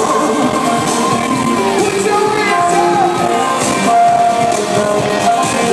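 Live electro-pop music played loud through an arena sound system, with a singer's voice over it.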